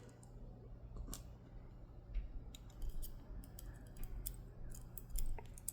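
Faint, irregular light clicks and ticks of small metal parts from a disassembled Dom Diamant lock being handled and set down, over a steady low hum.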